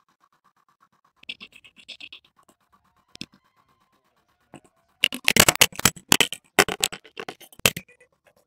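A 3D printer's stepper motors whine faintly, with light scratching and a click, then a few seconds of loud, dense scraping and clattering that stops just before the end.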